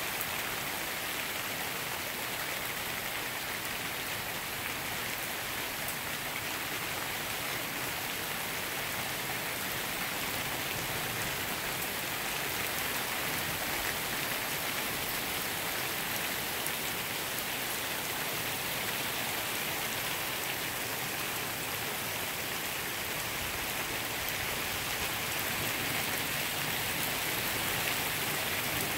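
Heavy thunderstorm rain falling steadily on pavement and grass, an even hiss that grows slightly louder near the end.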